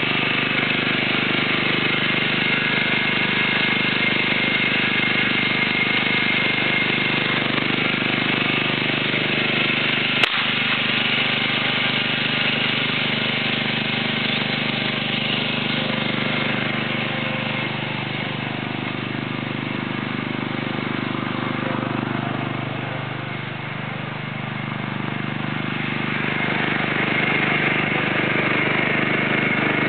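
John Deere riding lawn mower engine running steadily, easing off a little about two-thirds of the way through and then picking back up. A single short, sharp crack about ten seconds in.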